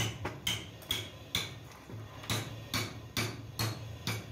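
Sharp metallic clicks in an even rhythm, about two a second, each with a short ring.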